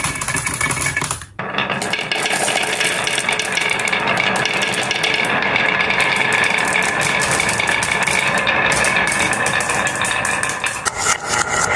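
Marbles clattering into a plastic toy dump truck's bed, then, after a short break about a second in, many marbles rolling and knocking down a carved wooden zigzag slope, a dense, continuous rattle of clicks on wood.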